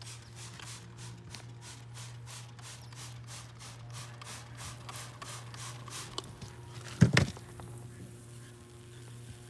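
Light, rhythmic scraping strokes, about three or four a second, over a steady low hum, then one sharp knock about seven seconds in.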